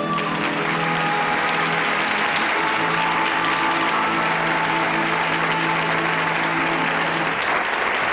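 Audience applauding at the end of a song while the band holds its final chord, which stops about seven seconds in.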